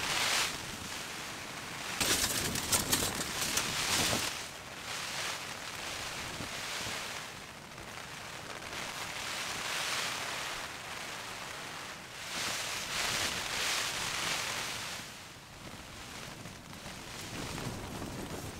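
Gusty mountain wind rushing in waves, swelling and dying away several times.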